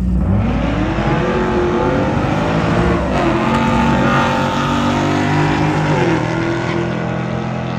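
Two Ford Mustangs accelerating hard side by side down a drag strip, their engines revving up and rising in pitch. The pitch drops at gear shifts about three and six seconds in, and the sound eases a little as the cars pull away.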